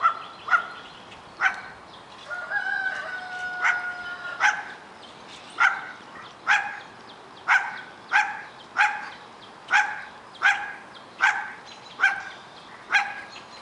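Young German Shepherd barking over and over during rough play, short sharp high barks at about one a second. A longer, steady high call sounds between about two and four seconds in.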